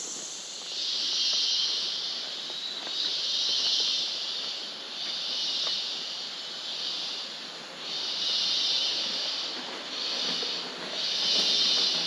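Rainforest cicadas buzzing in repeated high-pitched swells, each about a second long with short breaks between, about eight in all.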